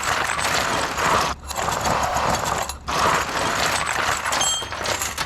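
Loose pieces of scrap steel rattling and clattering together in a bucket, in three long stretches with short breaks between them.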